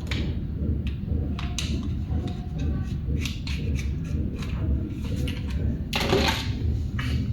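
Scattered light clicks and taps, with a louder scraping or rustling noise about six seconds in, over a steady low rumble.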